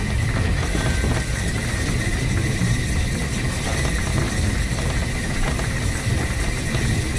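1915 Orenstein & Koppel steam locomotive running light along the track: a steady low rumble of wheels and running gear, with a thin steady high tone above it.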